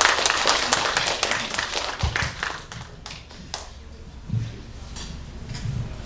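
Audience applause: dense clapping that thins out and fades over the first two or three seconds. It is followed by a few dull thumps as a live handheld microphone is handled and clipped into its stand.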